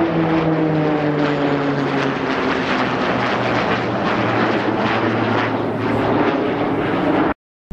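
Arriving aircraft flying past, its engines loud with a steady rush and a tone that slides down in pitch as it goes by. The sound cuts off abruptly near the end.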